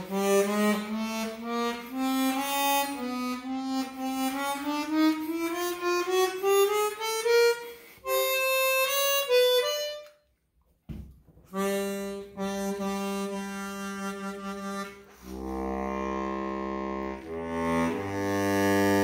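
Customized, air-tightened Suzuki Sirius bass chromatic harmonica being played. A stepwise rising run is followed by a higher passage and a short pause about ten seconds in, then slower, sustained notes.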